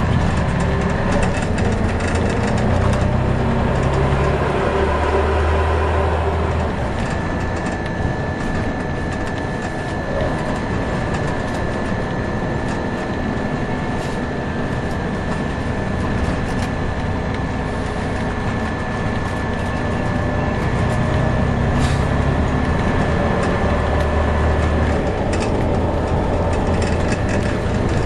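Inside a Scania OmniCity bus under way: the diesel engine drones low, its note changing several times as the bus pulls away and slows, over road noise. Scattered clicks and rattles come from the body and fittings, and a steady high whine comes in about seven seconds in.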